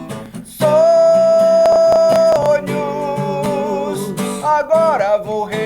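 Live rock song: acoustic guitar strumming, with the male lead singer coming in about half a second in on a long held note, then a wavering sung melody over the guitar.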